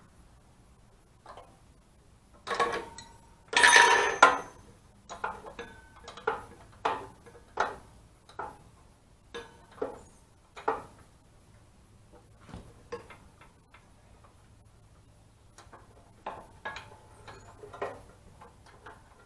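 Metal tools and parts being handled: a loud metallic clatter about three seconds in, then a string of sharp metallic clicks and knocks under a second apart, some with a short ring, and a few more near the end.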